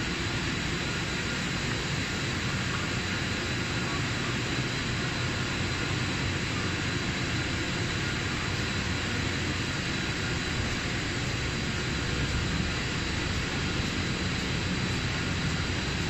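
Steady mechanical drone of a running power-cable extrusion line, its motors and drives going continuously, with a faint constant high whine over it.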